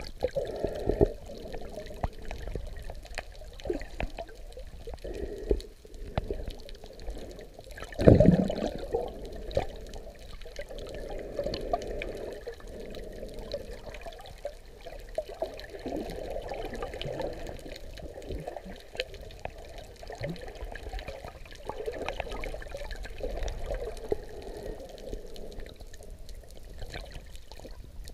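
Muffled underwater water noise from a snorkeler swimming with the camera submerged: sloshing and bubbling, with scattered clicks and one louder thump about eight seconds in.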